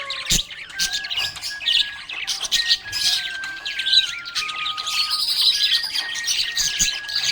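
Budgerigar chattering and chirping without pause, a fast jumble of warbles and squeaky notes, over a thin melody of held notes that step up and down in pitch. A sharp click sounds just after the start.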